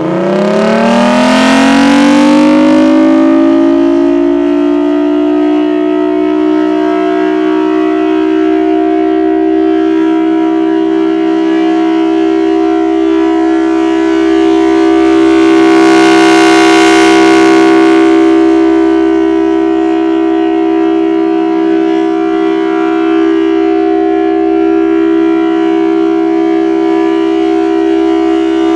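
Federal Signal Thunderbolt 1000T low-pitch outdoor warning siren sounding a steady alert tone. It finishes winding up over the first few seconds, then holds one low, steady chord that swells louder near the start and again about halfway through as the rotating horn sweeps past.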